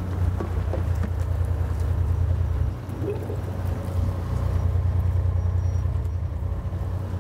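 A boat's engine running with a steady low drone that eases briefly about three seconds in, heard from on deck.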